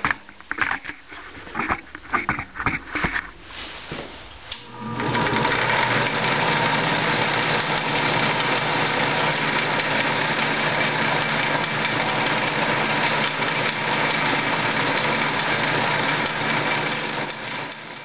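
Benchtop drill press drilling stitching holes through a leather sheath. For the first five seconds there are knocks and handling clatter. Then the motor starts and runs steadily until just before the end.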